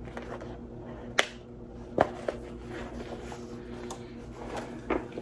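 Handbags being handled: two sharp clicks about one and two seconds in and a few lighter ticks near the end, over a faint steady hum.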